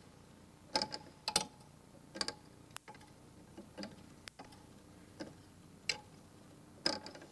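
Clockwork gear mechanism ticking and clicking unevenly, a click every half second to a second, several of them in quick pairs.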